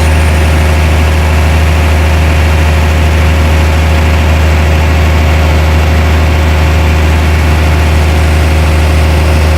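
Heavy machine's engine running steadily with a constant low drone.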